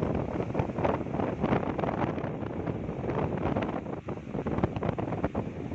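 Wind buffeting the microphone in gusts, over the continuous wash of sea surf on a beach.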